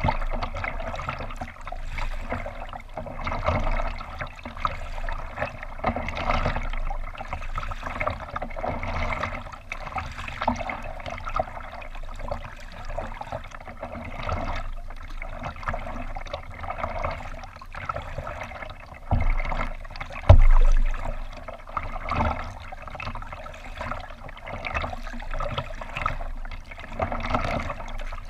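Water splashing and lapping against a kayak's plastic hull as it moves through the water, swelling and easing every couple of seconds. A few low thumps about two-thirds of the way through.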